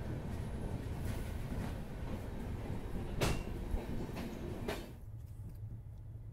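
Passenger train running with a steady low rumble, broken by two sharp knocks. About five seconds in the higher sounds drop away, leaving mostly the rumble.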